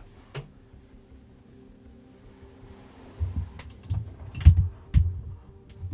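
Handling noise close to the microphone: irregular low muffled thumps and a few small clicks, beginning about three seconds in, over a faint steady hum. This fits hunters shifting and handling gear while watching a buck.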